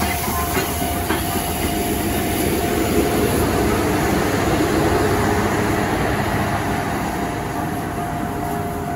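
DT668 steam locomotive's train (locomotive, tender and coaches) rolling slowly past, its wheels rumbling on the rails, louder around the middle, with a few clacks near the start. A level-crossing warning signal sounds as one steady tone throughout.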